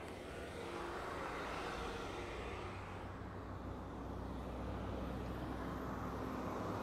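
Road vehicle engine running, growing louder over the first couple of seconds as it draws near, then holding steady.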